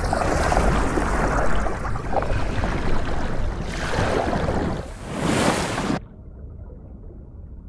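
Churning, rushing water underwater as a large marine reptile lunges through a ball of schooling fish, swelling twice in the second half. It cuts off suddenly about six seconds in, leaving a quieter low underwater rumble.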